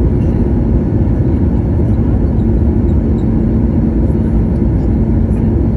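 Steady low roar of an Airbus A320neo's cabin in flight, heard from a window seat near its CFM LEAP-1A engines. A steady hum rises out of the roar about two seconds in.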